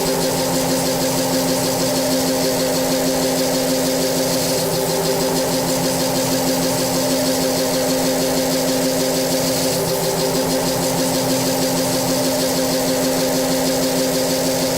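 Harsh noise track: a loud, steady wall of distorted noise over a low buzzing drone that doesn't change.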